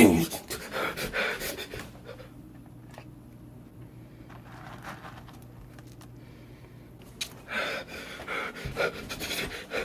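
A person panting heavily in fright. It opens with a loud sudden burst, then comes in bouts of hard breaths for the first two seconds and again near the end, with a quieter stretch in between.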